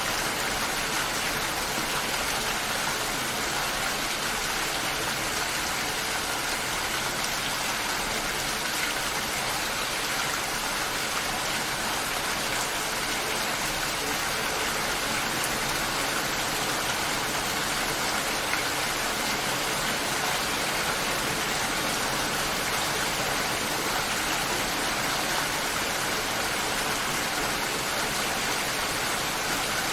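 Steady rain falling, an even hiss of many drops at a constant level.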